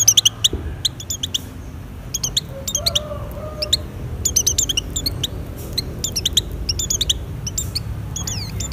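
A pleci (white-eye) in breeding condition singing: bursts of rapid, high, thin chirps that repeat in clusters with short pauses between.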